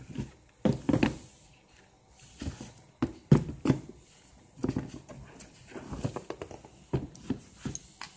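Irregular handling noise: rustling and soft knocks at uneven intervals as leather sneakers are picked up and moved about.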